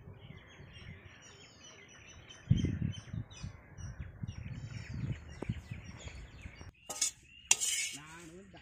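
Birds chirping in the background while a perforated steel ladle presses and stirs crumbly fried goat blood on a banana leaf. There is a dull knock about two and a half seconds in, another near five seconds, and brief scraping, rustling sounds near the end.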